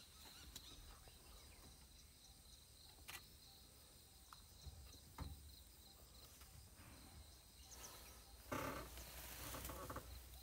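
Faint forest ambience: insects shrilling steadily at a high pitch, with a few soft clicks and a louder rustling stretch about eight and a half seconds in.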